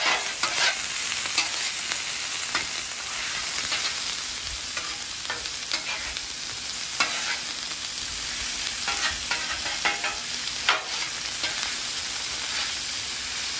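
Chopped onion, bell pepper, okra, celery and sliced andouille sausage sizzling in butter on a Blackstone steel flat-top griddle, with a metal spatula scraping and tapping on the cooktop several times as the food is tossed.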